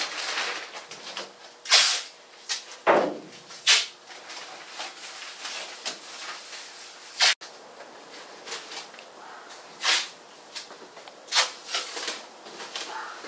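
Blue masking paper and plastic sheeting crinkling, with masking tape being pulled off the roll and pressed down while a car body is masked for paint. It comes as short, sharp rips and rustles every second or two.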